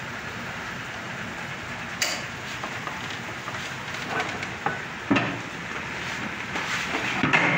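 Steel plates of a large rubber-ring mould knocking and clanking as they are handled: a sharp knock about two seconds in, another about five seconds in, and a louder clatter near the end, over a steady workshop hiss.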